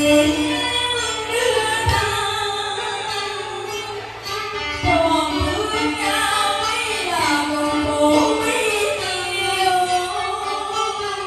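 Cải lương singing: a woman's voice in sliding, ornamented phrases over instrumental accompaniment.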